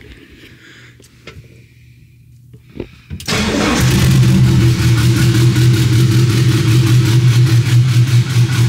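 Big-turbo Dodge SRT-4 2.4-litre turbocharged four-cylinder starts about three seconds in after a few faint clicks, catching at once and settling into a loud, steady idle.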